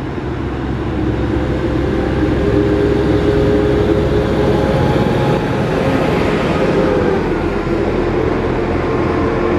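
An SA136 diesel multiple unit pulls into the platform and slows almost to a stop. Its engine and wheels on the rails grow louder about a second in as it draws alongside, with a held engine tone that drops slightly in pitch midway.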